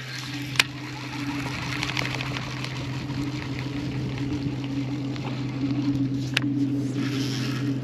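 Steady hum of a small electric motor on a bass boat, with a few sharp clicks now and then.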